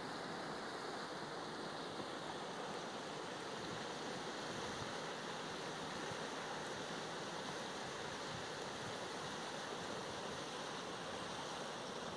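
Steady rushing of the Danube in flood, fast-flowing high water heard as an even wash of noise.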